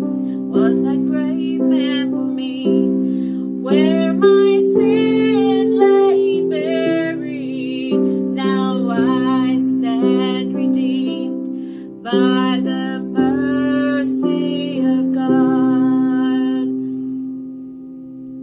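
A woman singing over an instrumental backing of held chords that change about every second. Her voice drops out about two seconds before the end, leaving the accompaniment alone.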